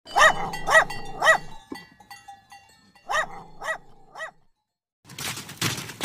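Small dog barking: three quick high-pitched barks, then a pause and two or three more. About five seconds in, a different noisy, clattering sound begins.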